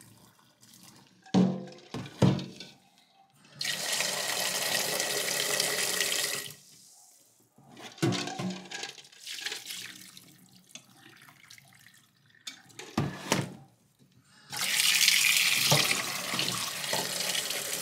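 Hot water poured off a stainless-steel pot of boiled eggs into a sink, running for a few seconds, with short metal knocks of the pot against the sink. Near the end a cold tap runs steadily into the pot, to cool the eggs and stop them cooking.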